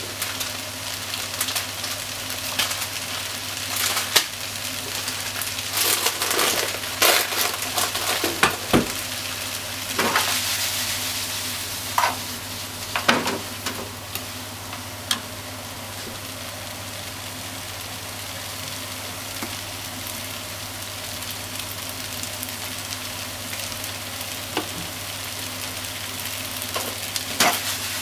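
Pork, onion and noodles sizzling in a frying pan while being stir-fried with chopsticks. Clicks and scrapes of the chopsticks against the pan come thickly in the first half and again near the end, with steady sizzling between.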